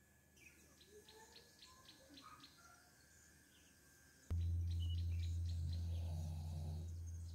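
Small birds chirping faintly outdoors, short repeated chirps several times a second. About four seconds in, a loud, steady low hum comes in abruptly and carries on under the chirps.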